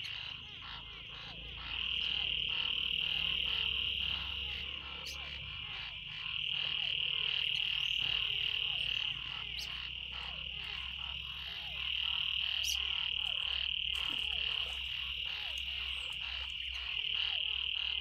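A frog chorus in a freshly rain-flooded pool. A high, steady trill swells and eases off in bouts of a few seconds, with many short calls from other frogs over it.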